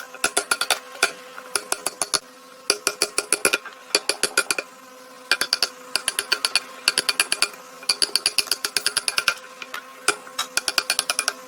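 Quick bursts of sharp hammer taps, several strokes at a time with short pauses between, over a faint steady hum.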